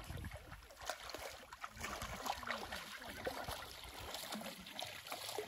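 Shallow river water splashing and sloshing irregularly around the legs of people wading across on foot.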